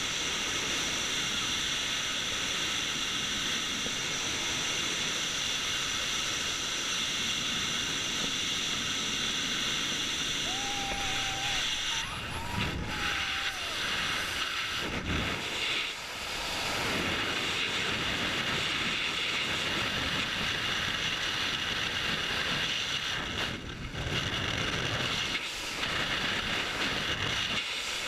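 Helicopter engine and rotor noise, a steady loud rush with a high whine. About twelve seconds in it gives way to gusty, uneven wind buffeting the microphone, typical of a jump from a helicopter.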